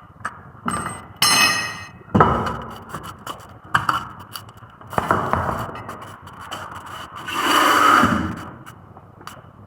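Hand tools and metal brake parts clinking, knocking and scraping while front brake pads are being changed. About a second in there is a short metallic ring, and near the end a longer scrape that swells and fades.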